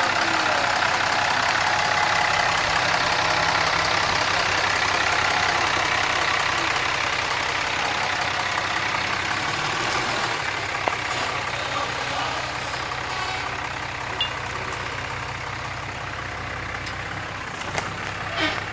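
Dodge Ram pickup truck's engine running steadily at low speed while towing a dump trailer loaded with topsoil, growing a little quieter in the second half. A few sharp clicks near the end.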